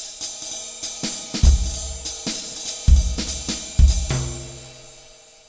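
Short intro music played on a drum kit, with cymbal and hi-hat hits and three heavy bass-drum accents. The last accent, about four seconds in, leaves a held chord that fades away.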